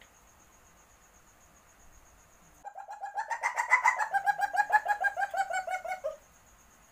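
A civet in heat giving its mating call: a rapid stuttering chatter of clucking notes, about eight a second, starting a little under three seconds in and lasting about three and a half seconds. Its pitch climbs over the first second, then eases slowly down.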